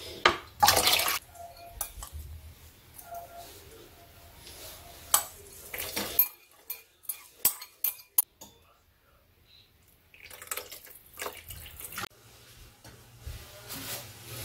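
Beef bone stock poured from a plastic pouch into a pot near the start, then a metal spoon scraping and tapping against a ceramic bowl as chopped green onion and chili are knocked into the pot, with a run of sharp clinks from about five to eight seconds in.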